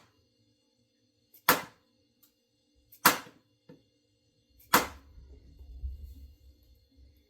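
Three sharp strikes about a second and a half apart as an axe head is seated on its new wooden handle. A low rumble follows the last strike.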